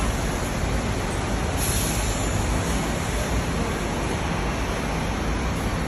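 MAN single-deck diesel city bus pulling slowly forward, a steady engine and tyre rumble. A short hiss comes about two seconds in.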